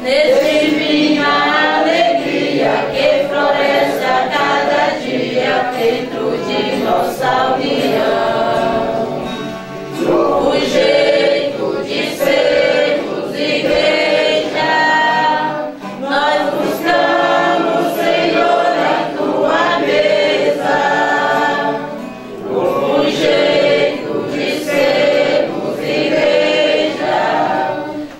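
Congregation singing an offertory hymn in Portuguese in unison, accompanied by a strummed acoustic guitar, with brief pauses between sung phrases.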